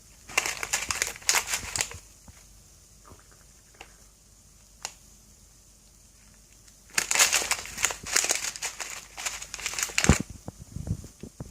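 Crinkling, rustling handling noise in two bursts of a couple of seconds each, with a dull thump near the end.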